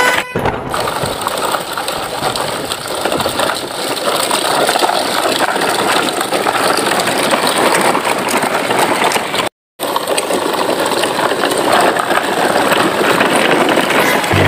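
A truck engine running steadily, a dense rough noise, with a brief dip just after the start and a short cut to silence just under ten seconds in.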